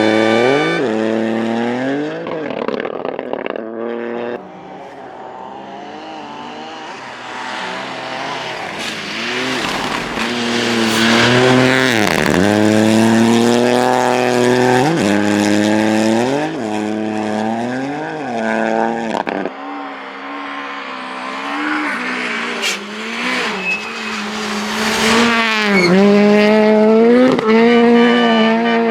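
Rally car engines at full effort, the pitch climbing and dropping again and again with gear changes and lifts off the throttle. The sound is loudest about twelve seconds in and again near the end.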